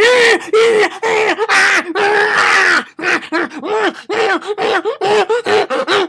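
A person making a loud, wordless comic vocal noise in a strained, groaning voice: a few longer held sounds, then short repeated syllables at about three a second.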